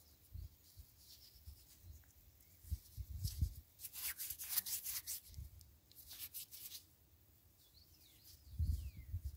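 Faint handling noise: scratchy rubbing close to the microphone in a few bouts around the middle, over soft low bumps, as a small stone scraper is turned over in the fingers.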